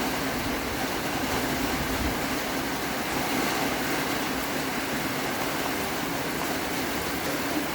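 Heavy tropical rain falling steadily, an even hiss with no breaks.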